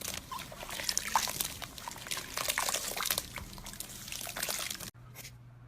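Slime being squished and worked by hand, giving dense wet crackling and popping clicks that stop abruptly near the end.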